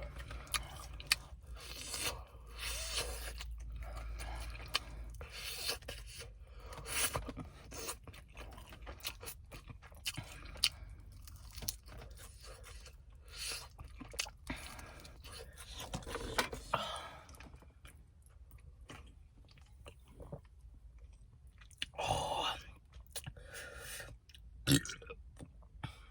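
Close-up chewing of crispy Korean fried chicken, with repeated crunches of the fried coating between bites. Near the end there is a short burp.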